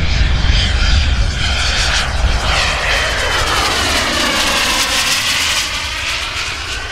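Turbine engines of a large RC model Dassault Falcon 20 jet flying past, a steady jet roar with a deep rumble. Its whine drops in pitch as the model passes, and the sound eases off slightly toward the end as it moves away.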